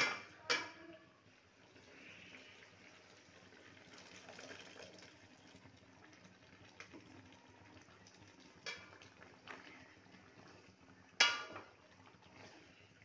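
Chicken pieces frying in a cooking pot with a low, steady sizzle, and a few sharp knocks of a spatula against the pot, the loudest near the end.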